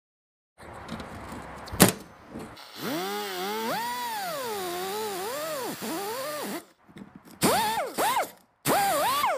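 Air-powered cut-off wheel cutting through stainless steel braided fuel hose. The tool's whine rises and sags for about four seconds as the wheel bites into the braid, then comes in two shorter bursts near the end, each spinning up and falling away. A sharp click comes just before the first cut.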